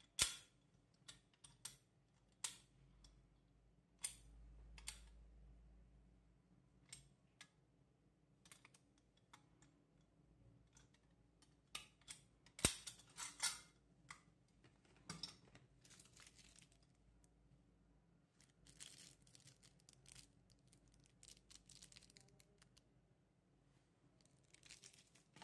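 Handling noise from a white folding steel shelf bracket: scattered sharp clicks and knocks of metal as the hinged arm is swung and folded. The loudest click comes just after the start and another about halfway through. Soft rustling in the latter part, strongest near the end, comes from a small plastic bag of screws being handled.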